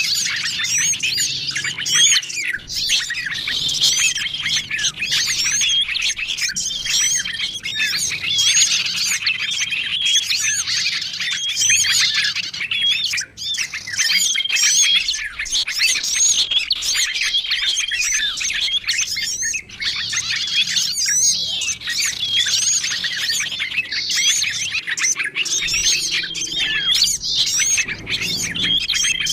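A dense chorus of small songbirds chirping and twittering, calls overlapping throughout, with a short level whistle recurring every few seconds. It is a bird-luring call track mixing the calls of several small bird species, played to draw small wild birds in.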